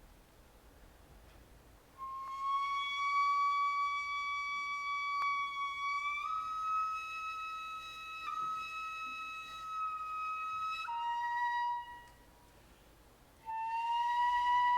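A solo Japanese bamboo flute plays long held notes, sliding slightly into each one. It steps up to a higher note, then drops lower. It breaks off briefly and resumes on a new sustained note near the end.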